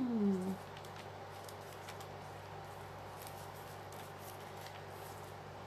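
A brief falling vocal hum at the start, then faint small clicks and rustles of a glued paper strip being handled and pressed onto a journal page, over a low steady hum.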